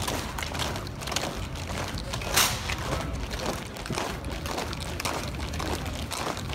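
Boots of a marching column striking wet asphalt in step, about two footfalls a second, over a steady low rumble; one sharper, louder strike comes a little over two seconds in.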